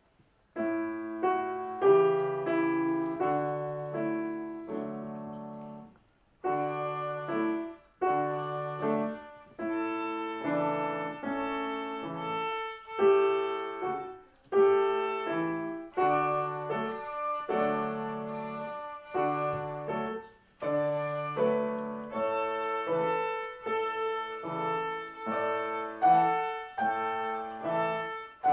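A young child's violin with grand piano accompaniment playing a short piece, starting about half a second in, in phrases separated by brief pauses.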